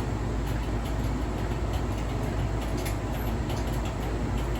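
A new Hotpoint appliance running with a steady low rumble and faint, irregular clicks, the clicking and scraping noise that the owner suspects is a fault.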